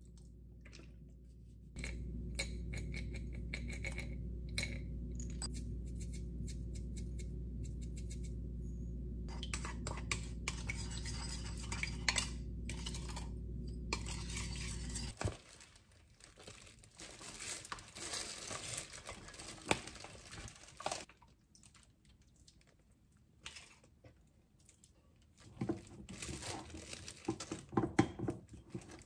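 Wooden spoon clinking and scraping against a glass mixing bowl as vinegar seasoning is stirred, then a wooden spatula mixing cooked rice in the bowl for sushi rice, with a dense run of clinks near the end. A steady low hum starts about two seconds in and cuts off suddenly about halfway.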